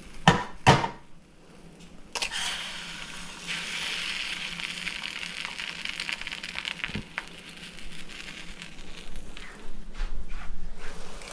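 Two sharp knocks, then an egg sizzling in a hot buttered frying pan. The sizzle starts about two seconds in as the egg goes in, holds steady, and dies down near the end.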